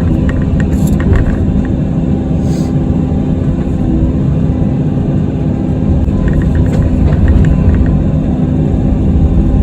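Kobelco SK85 excavator's diesel engine running steadily, heard from inside the cab as a constant low drone with a steady hum. Short clusters of light clicks come near the start and again about two-thirds of the way through.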